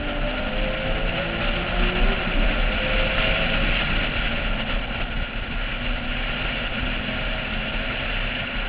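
Porsche 996 at track speed heard from a camera on its roof: wind rush over the microphone with the flat-six engine note underneath, climbing in pitch over the first few seconds.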